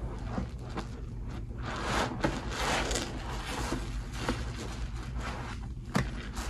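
Soap-loaded sponges squeezed and kneaded by hand in a bowl of thick suds: irregular wet squelching and the crackle of foam, with a sharp squish about six seconds in.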